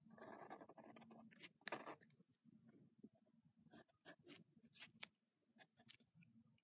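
Ballpoint pen sketching on notebook paper, faint: scratchy strokes at first, one longer, stronger stroke about two seconds in, then a run of short, quick scratches.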